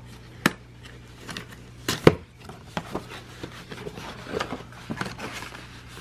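A cardboard gift box being handled and opened by hand: sharp taps and clicks of cardboard, the loudest about two seconds in and another about half a second in, with scattered lighter taps and a soft rustle of flaps being unfolded.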